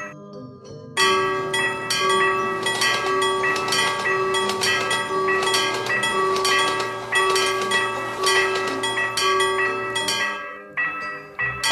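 Railroad crossing warning bell ringing in a rapid, even run of strikes, with a pulsing tone under it; it starts about a second in and stops shortly before the end.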